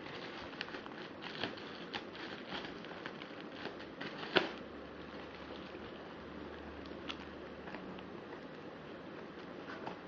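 Scattered light clicks and crinkles of packaging and small parts being handled, with one sharper click about four and a half seconds in, over a steady hiss.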